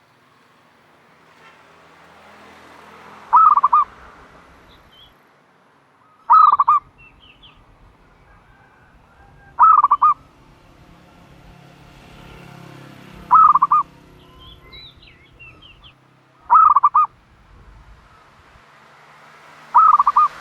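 Turtle dove calling from its nest: six short, loud, rolling coos, one about every three seconds. Faint high chirps of small birds are heard between them.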